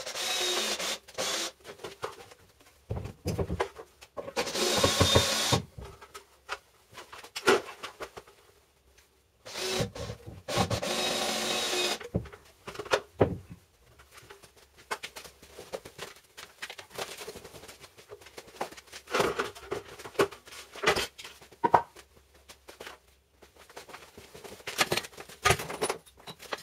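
A cordless drill-driver runs in three long bursts, driving wood screws through a timber joist into a plywood formwork panel. Scattered knocks and clatter of wood and metal being handled follow.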